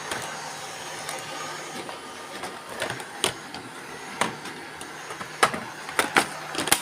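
Robot vacuum cleaners running with a steady whir and hum, with sharp clicks and knocks several times in the second half.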